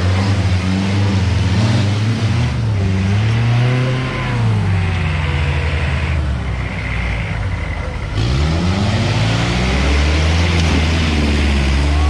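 Competition off-road 4x4's engine running loud and revving up and down; the revs climb and drop a few seconds in, then climb again past the middle.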